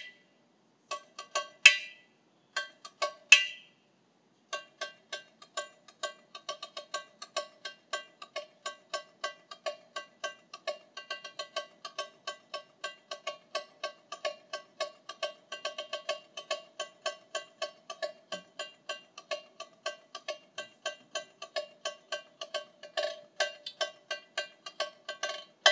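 Tamborim struck with a stick: a few separate strokes, then from about four seconds in a steady, even run of short, ringing hits, about four to five a second.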